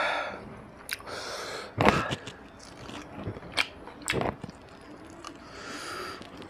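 Close-miked eating: fingers working rice and mutton curry on a steel plate, then a handful of rice and mutton being bitten and chewed wetly, with a few sharp clicks, the loudest about two and four seconds in.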